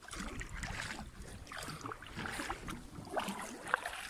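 Small waves lapping irregularly against a kayak hull, with light wind on the microphone and one sharper slap near the end.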